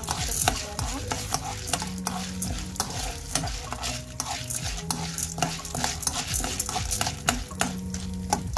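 Metal spoon stirring popcorn kernels in hot oil and butter in a nonstick frying pan: a steady run of clicks and scrapes as the kernels rattle against the pan, with the fat sizzling underneath.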